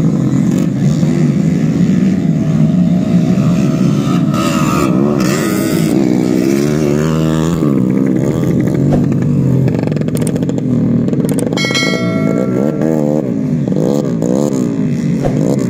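Several racing trail motorcycles revving on a muddy dirt track, their engine pitch rising and falling over and over as the riders work the throttle. A brief steady high tone sounds about twelve seconds in.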